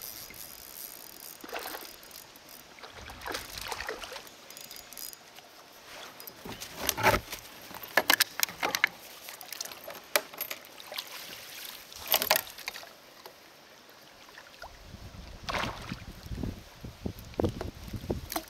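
Irregular water splashes and sharp knocks around a kayak while a hooked fish is played on rod and reel. The loudest hits come in a cluster about seven to nine seconds in and once more near twelve seconds, with a busier patter of smaller ones near the end.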